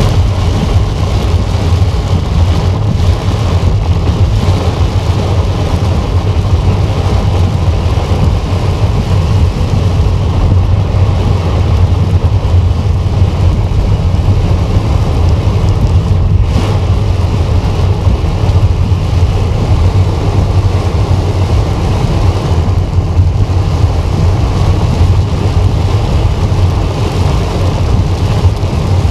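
Car driving on a gravel road in heavy rain, heard from inside the cabin: a steady low rumble of engine and tyres under the even hiss of rain falling on the roof and windshield.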